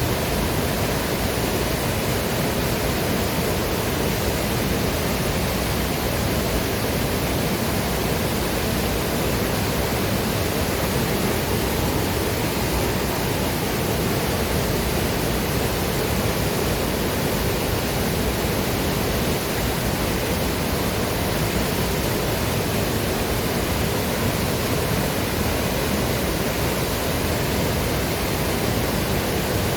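Waterfall and river water rushing, a steady, dense roar of falling and flowing water with no breaks.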